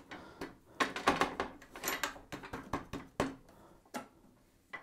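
Light metal clicks and taps, irregular and sparser near the end, from a steel rule and the fence being set against the table of a table saw. The saw is not running.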